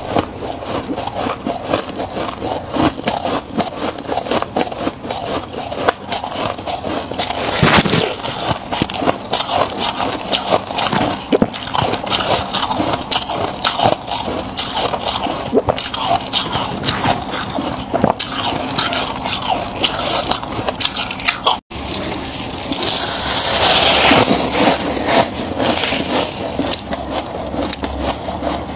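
Freezer frost being chewed, a dense run of small crackling crunches. After a brief cut near the end, a louder rustling scrape as gloved hands scoop frost out of the frosted chest freezer.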